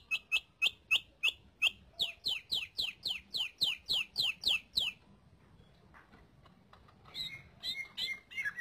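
Green leafbird (cucak ijo) calling: a fast series of short, sharp down-slurred notes, about three a second and quickening, for some five seconds, then a pause and a few more notes near the end.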